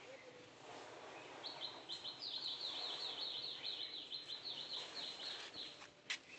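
A bird chirping in a rapid run of high, quick notes, about five a second, for about four seconds. A sharp click comes near the end.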